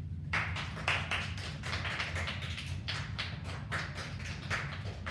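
A small group of people clapping: quick, irregular hand claps starting about a third of a second in and going on, over a steady low room hum.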